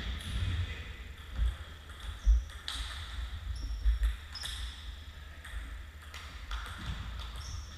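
Table tennis ball in a short rally: a run of sharp clicks as it strikes the bats and table, some about half a second apart, with a few dull thuds among the loudest hits.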